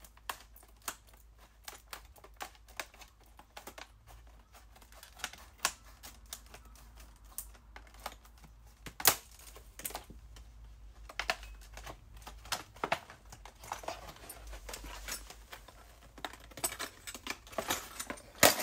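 Scissors snipping open a door lock's packaging, with the package handled as it comes apart: an irregular run of small sharp clicks and snips, a few louder than the rest.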